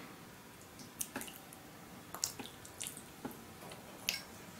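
Hands rubbing sauce into a raw chicken breast on a plastic cutting board: a scattering of short, faint wet squelches and clicks.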